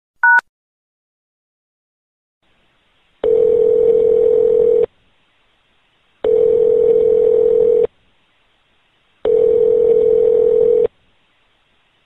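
A single short keypad tone as a phone number is dialed, then the line's ringback tone: a steady low beep about a second and a half long, heard three times, about every three seconds, over faint line hiss.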